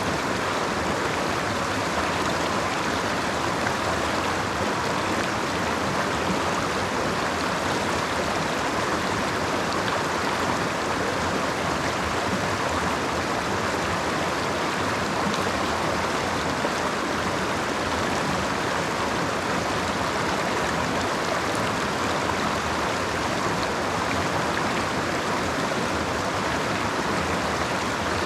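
Creek water flowing, a steady, even rush with no breaks.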